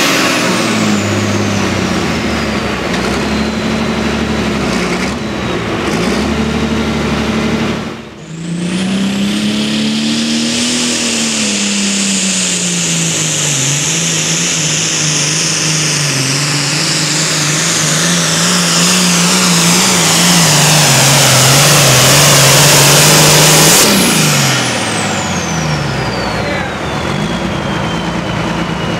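Turbocharged pulling tractor engines under full load. First a Farmall's engine winds down with a falling turbo whistle. After a sudden cut, a John Deere 8110's engine pulls hard with a high turbo whine, its note sinking as the sled load builds. About 24 seconds in it comes off the throttle and the turbo whistles down.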